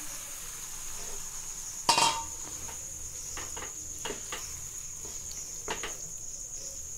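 Boiled green moong dal being poured and stirred in a nonstick pan: a loud metal clank about two seconds in, as the steel bowl knocks the pan, then a wooden spatula stirring the dal with a few soft knocks and scrapes against the pan.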